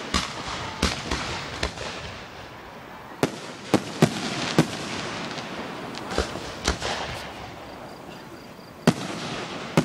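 Aerial firework shells bursting overhead: about a dozen sharp bangs at uneven intervals, some in quick pairs, with a gap of about two seconds near the end before the next bangs.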